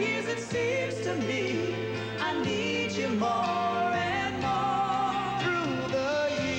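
Man singing a pop ballad over band accompaniment, holding long notes with vibrato in the second half.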